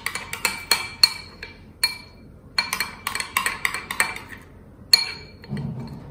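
A spoon stirring curds in a glass bowl, clinking against the glass in quick, irregular taps that ring briefly, with short pauses between runs of stirring.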